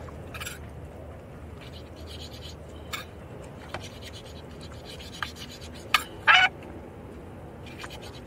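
A knife cutting strands of Dyneema line against a cutting board: a handful of short scratchy cuts spread out, with one louder, brief sharp sound about six seconds in.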